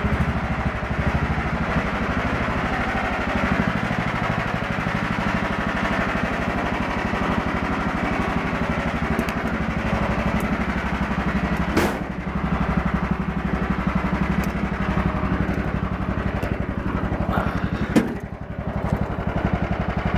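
John Deere 180 lawn tractor engine running steadily soon after a cold start, having sat unused for over three months. There is a sharp click about twelve seconds in and another near the end.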